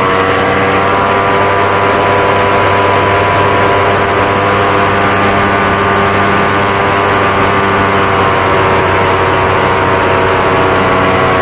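Paramotor engine and propeller running under power in flight, a steady drone whose pitch eases slightly lower near the end.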